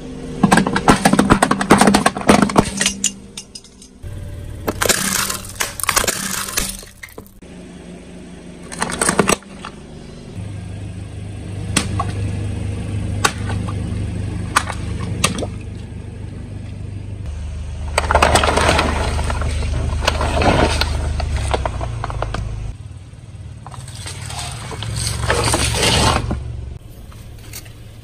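A car tyre rolling slowly over aluminium drink cans and water balloons, crushing them one after another: a string of loud crunches, bursts and sprays of liquid, with the car's engine running low in between.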